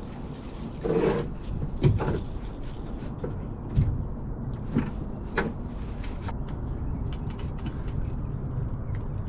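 Steady low rumble of wind and choppy water against a fishing boat, with a handful of sharp knocks and thumps on the boat.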